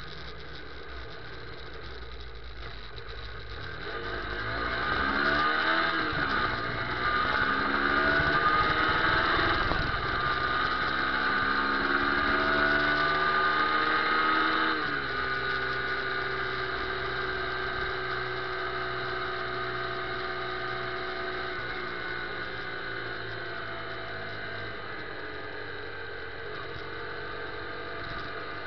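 Motorcycle engine accelerating through the gears, its pitch climbing in three runs with shifts about six, ten and fifteen seconds in. After that it runs steadily at cruising speed, the pitch slowly falling as it eases off.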